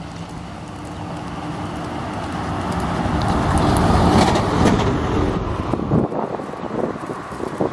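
A BRT bus approaching and passing, its engine and tyres growing steadily louder to a peak about four seconds in, then fading away.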